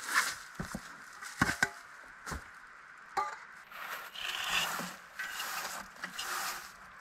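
Straw broom sweeping wooden planks: a few sharp knocks on wood in the first half, then a run of steady bristle swishes across a plank.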